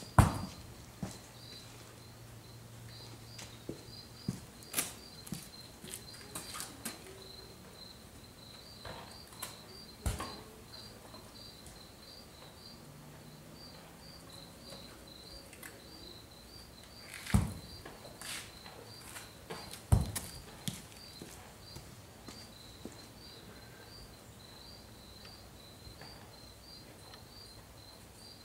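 Steady high insect chirping, about three chirps a second, under scattered sharp knocks and clatters. The loudest knocks come just after the start and about 17 and 20 seconds in.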